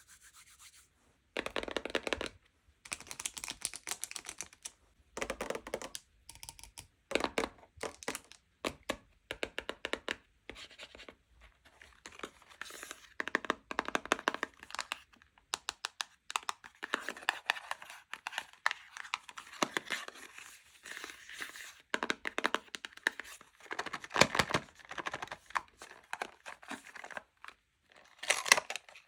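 Wrappers and packaging being torn open and crinkled by hand, in irregular runs of crackling with short pauses between.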